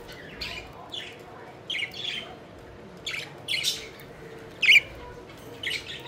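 Several budgerigars chirping and squawking in short, scattered calls, the loudest and sharpest about three quarters of the way through.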